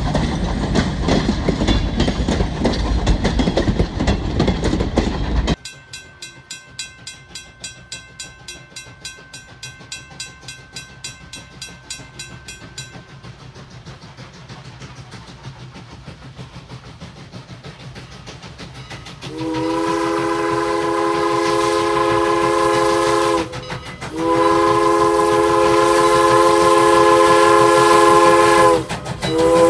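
Railcars rolling close past with a loud rumble of wheels on rail. After a break, faint rhythmic ticking, then the chime steam whistle of Strasburg Rail Road No. 89, a 2-6-0 steam locomotive, blows a chord of several notes: two long blasts and a short one. This is the start of the long-long-short-long grade-crossing signal.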